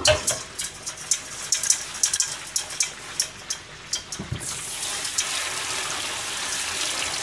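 Sponge scrubbing a plastic food tray in a stainless steel sink: a run of short scratchy strokes and light knocks. About four seconds in, the tap water starts to run steadily as the tray is rinsed.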